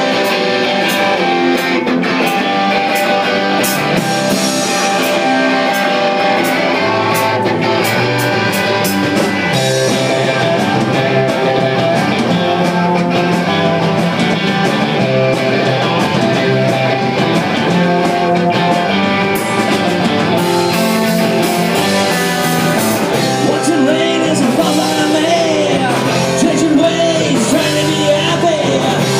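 Live rock band playing loud with distorted electric guitars and bass.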